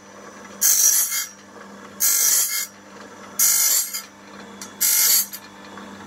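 Electric bandsaw-blade sharpener's abrasive grinding wheel grinding the teeth of a sawmill band blade one tooth at a time: four short grinds about a second and a half apart, with the motor humming steadily between them.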